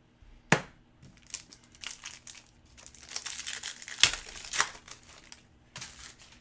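Foil wrapper of a hockey card pack crinkling and tearing as it is opened, in a run of crackles with the sharpest about half a second in and again about four seconds in.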